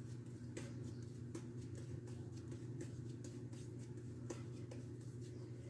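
Quiet kitchen room tone: a steady low hum with a few faint taps and clicks.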